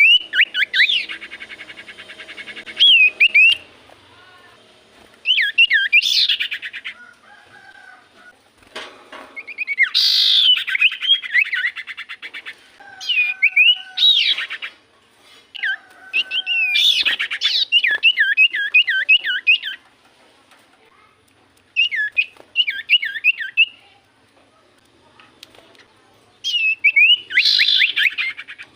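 Common iora (cipoh) singing: short phrases of quick, sharply sweeping chirps, some rapidly repeated, separated by pauses of a second or two.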